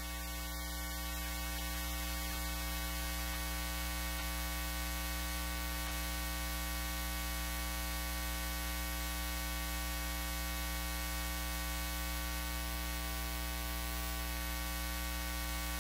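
Steady electrical mains hum with a stack of overtones and a hiss over it, from an idle public-address system with nothing playing through it. It grows slightly louder over the first couple of seconds, then holds steady.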